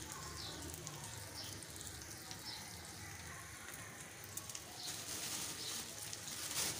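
Frozen samosas frying gently in barely warm oil in a kadhai: a faint, steady sizzle with scattered small crackles, and a brief louder burst near the end.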